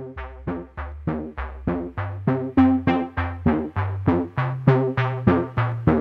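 Background music: a steady run of short, quickly fading pitched notes, about three to four a second, over a low bass line, growing louder over the first couple of seconds.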